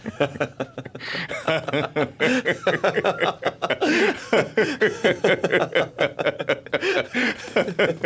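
Men's voices chuckling and laughing together in quick repeated pulses, starting about a second in and running on for several seconds.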